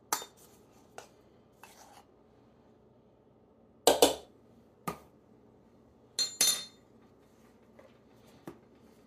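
A metal measuring spoon clinking and scraping against a baking powder can and tapping on a mixing bowl: a scattering of short clicks and knocks, the loudest a quick pair about four seconds in and another pair a couple of seconds later.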